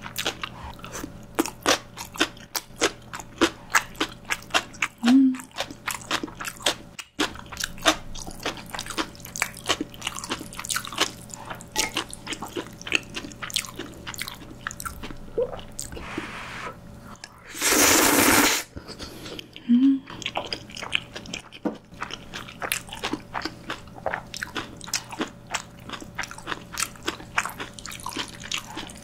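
Close-miked eating of crunchy green onion kimchi and saucy Chapagetti noodles: many sharp crunches and wet mouth clicks of chewing. A little past halfway comes one loud noodle slurp lasting about a second.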